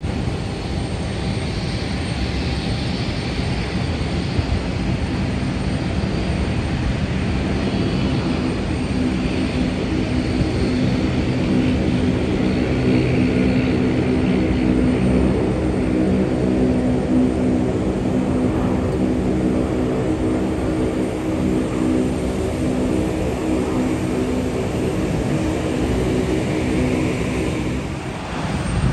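Boeing 747's four jet engines on landing approach: a loud, steady rushing noise with a low droning hum that builds through the middle and fades just before a sudden change near the end.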